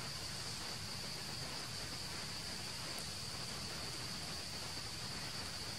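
Steady high-pitched drone of forest insects, one unbroken buzzing tone over a constant hiss.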